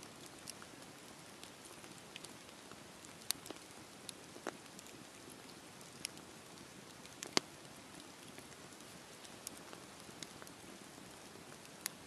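Wood campfire burning: a steady soft hiss of flames with scattered sharp crackles and pops from the logs, the loudest pop about seven seconds in.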